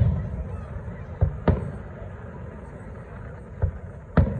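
Aerial firework shells bursting: about four booms, a pair close together around a second and a half in and two more near the end, each trailing off.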